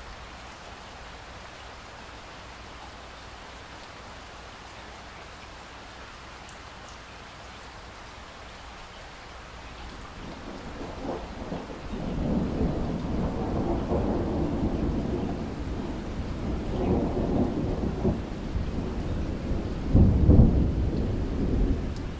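Steady rain hiss, then about ten seconds in a long roll of thunder builds and rumbles on, with its loudest clap near the end.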